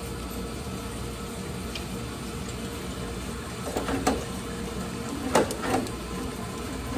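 Washing machine running with a steady hum, with a few sharp knocks and clatters in the second half.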